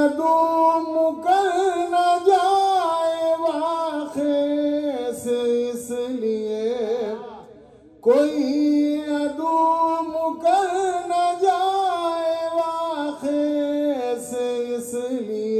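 Devotional Urdu verse sung by a solo voice, drawn out in long melismatic phrases on held, wavering notes. Two phrases, with a short break about eight seconds in.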